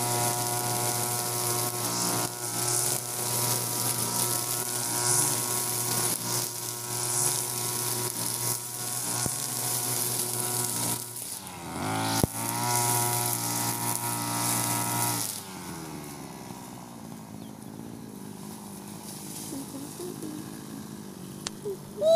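Europa Hilt EH4300 (TB43) two-stroke brush cutter with a nylon-line trimmer head running at high revs while cutting grass, with a steady high whine. About twelve seconds in the revs dip and pick up again, and about two-thirds of the way through the engine drops back to a much quieter, slower running.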